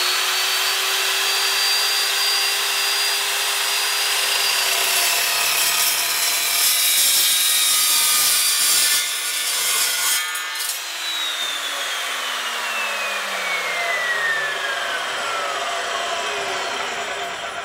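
Evolution S355MCS 14-inch dry-cut metal chop saw with a carbide-tipped blade cutting through 2-inch square steel tubing with an eighth-inch wall: a loud, dense cutting noise over the motor's steady high whine. About ten seconds in the cut ends and the blade winds down, its whine falling steadily.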